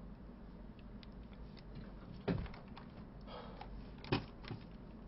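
Quiet room tone with a low hum, broken by two short knocks, one a little over two seconds in and one about four seconds in.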